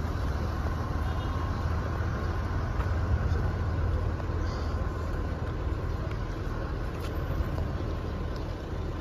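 Steady low rumble of road traffic and car engines.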